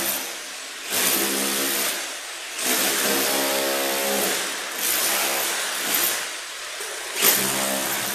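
Handheld angle grinder grinding down a high spot in a concrete floor screed, its motor whine and grinding hiss rising and easing about five times as it is pressed on and let off.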